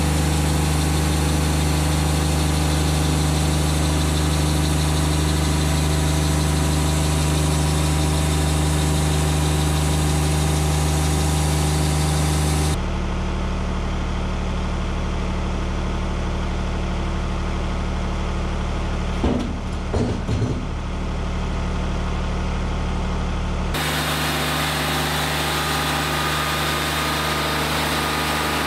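Wood-Mizer LT40 hydraulic portable sawmill's engine running steadily, its tone changing abruptly twice. A few short knocks come about two-thirds of the way through.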